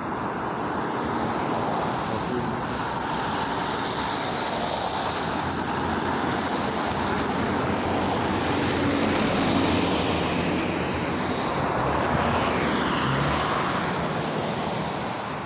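A city bus drives past close by, its engine and tyre noise growing to a peak about ten seconds in, over steady traffic from passing cars on a wet road.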